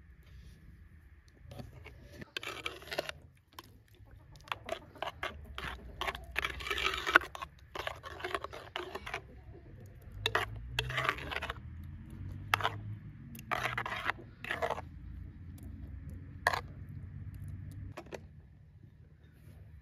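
A spoon scraping and stirring thick yogurt in a glazed clay pot: a run of short scrapes and wet clicks coming in bursts.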